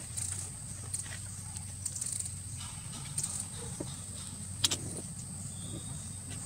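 Steady background hum with a steady high-pitched tone over it, broken by scattered light clicks and one sharp click a little past halfway.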